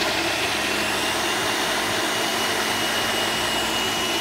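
Countertop blender motor running at steady high speed, blending fruit and ice cream. A constant high whine sits over the whirring of the blades and liquid.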